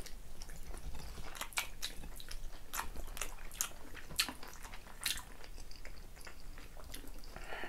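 Close-up chewing by two people eating very tender braised pork tail with white rice, with many short, irregular mouth clicks.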